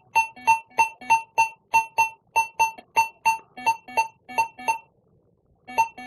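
AKA Sorex Pro metal detector giving a clean, repeated target tone, about three short beeps a second, as a copper 1-kopeck coin of Nicholas II is swept back and forth over its coil. The beeps stop for about a second near the end, then start again.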